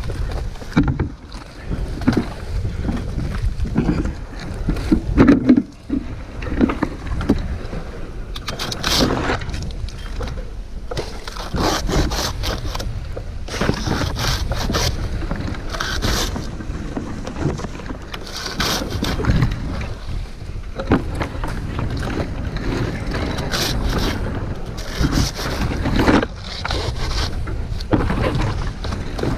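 Wind buffeting the microphone in a continuous low rumble, with irregular rustling and scraping throughout.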